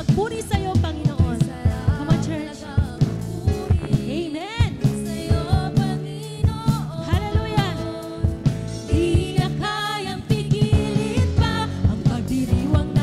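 Live worship band playing an upbeat praise song: several female voices singing in Tagalog over drum kit, acoustic and electric guitars, bass and keyboard, with a steady drum beat.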